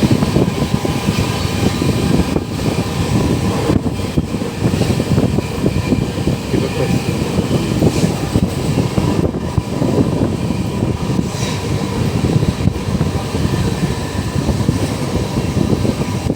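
A moving vehicle: steady low rumble of engine and road noise.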